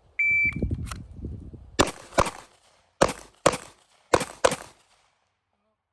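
Shot timer's short start beep, then handgun shots fired in quick pairs, three pairs about a second apart, with a stop before the last second.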